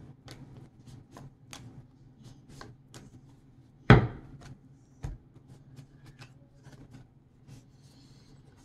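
Tarot cards being shuffled by hand: a run of light clicks and flicks, with a sharp thump about four seconds in and a lighter one about a second later.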